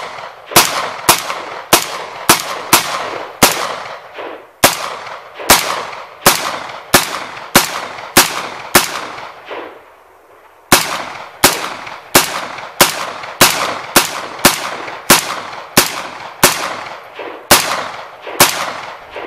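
A 5.56 AR-15 pistol with a 10.5-inch barrel fired in rapid semi-automatic shots, about two a second, each sharp crack trailing off in a long echo. The firing pauses for about two seconds near the middle, then carries on at the same pace.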